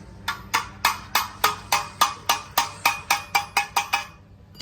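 A hammer striking a steel exhaust pipe during silencer fabrication: about fifteen sharp, ringing metal blows at roughly four a second, speeding up a little toward the end.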